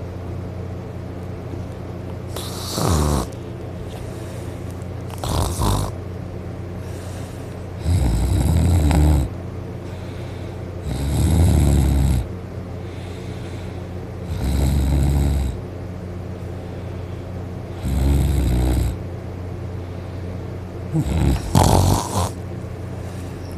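A man snoring loudly in deep sleep: about seven snores, roughly every three seconds, the longest lasting about a second.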